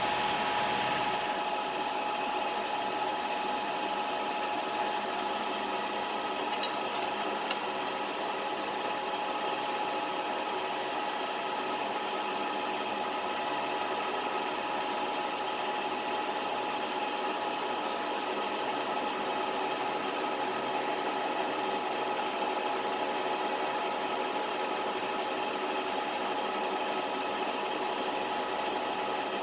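Vertical knee mill running steadily, its cutter milling a slot out of a drilled hole in metal, with a brief high squeal about halfway through.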